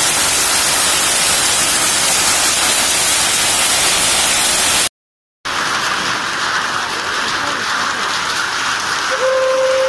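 Heavy rain and hail pelting a concrete yard and a tin roof, a dense steady hiss. It cuts out for about half a second around the middle and comes back a little thinner. Near the end a steady held tone starts.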